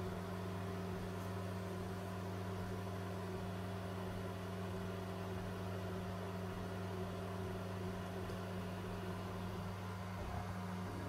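Qidi i-Mate S 3D printer running a test print: a steady machine hum with a few constant low tones over a light hiss.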